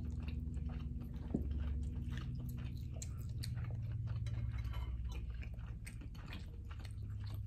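Close-miked chewing of lobster meat: a dense run of small wet mouth clicks and smacks, with a steady low hum underneath.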